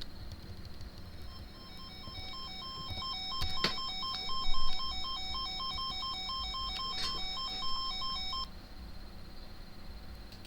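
Electronic alert tone beeping back and forth between two pitches, about three beeps a second, over a faint steady high whine; it starts about a second in and cuts off suddenly after about seven seconds, with a couple of sharp clicks partway through.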